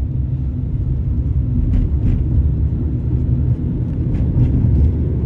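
Low, steady rumble of city street traffic, with a few faint clicks.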